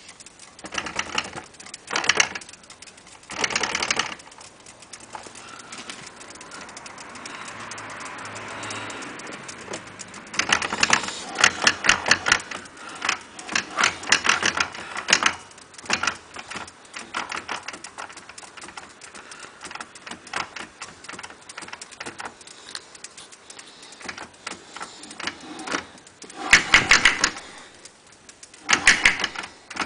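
Rapid mechanical rattling clicks coming in bursts of one to several seconds, densest about a third of the way in and again near the end: an abnormal noise (異音) from a NEX.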